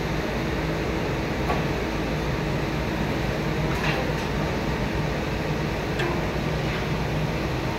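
Steady machine hum with a low drone, like a running industrial blower, with a few faint taps about a second and a half, four and six seconds in.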